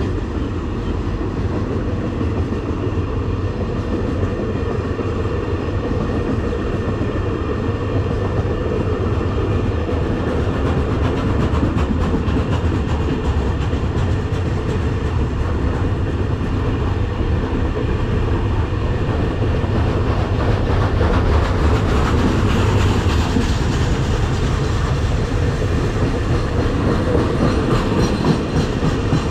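Container freight train's wagons rolling past close by: a steady, loud rumble and clatter of steel wheels on the rails, growing a little louder after about twenty seconds.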